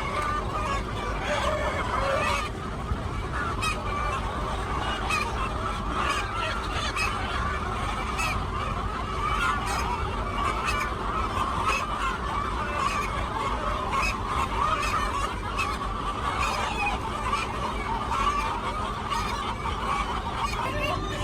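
A flock of farm poultry calling continuously, with many overlapping calls that never let up.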